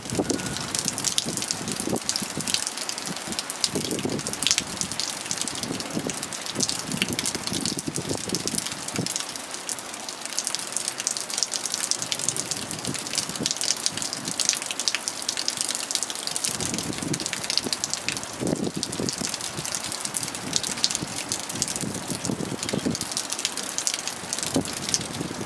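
Heavy rain falling on wet pavement: a steady hiss thick with the patter of drops.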